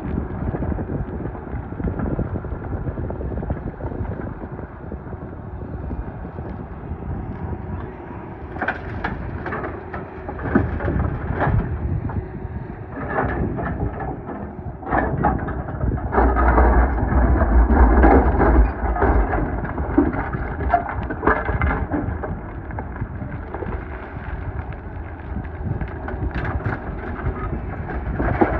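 Doosan DX420LCA excavator's diesel engine running, heard from inside the cab. Gravel scrapes and clatters in the bucket from about a third of the way in, with the loudest stretch of rattling rock and deep rumble a little past halfway.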